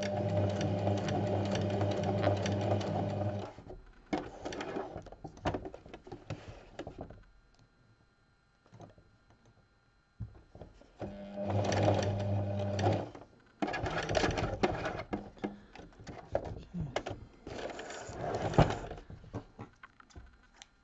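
Electric sewing machine stitching in two short runs, the first about three and a half seconds long, the second about two seconds starting near the middle. Scattered rustling and clicks fill the stretch after the second run.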